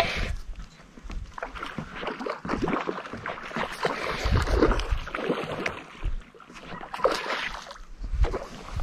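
A hooked kokanee salmon splashing irregularly at the water's surface while it is reeled in on a spinning reel.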